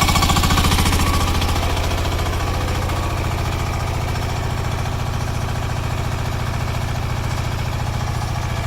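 Single-cylinder air-cooled diesel engine of a Rhinoceros XN10 mini excavator running with a fast, even thudding pulse. It eases down in speed and loudness about two seconds in, then settles to a steady idle.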